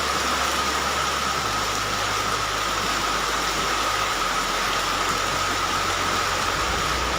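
Heavy rain pouring down steadily as an even, unbroken hiss, with a low engine hum beneath it.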